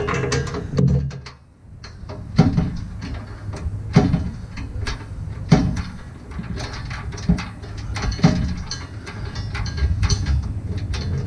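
Steel hitch bolt and mounting hardware being worked into a pickup's frame rail: a run of small metallic clicks, with a sharper metal knock about every one and a half seconds.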